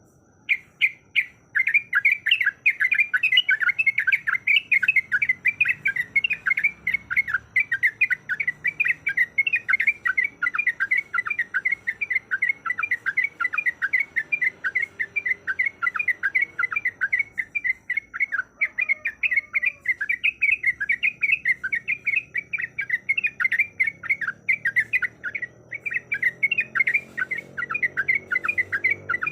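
Sooty-headed bulbul (trucuk) singing a fast rolling song: short chattering notes repeated several times a second, with one brief pause about two-thirds through.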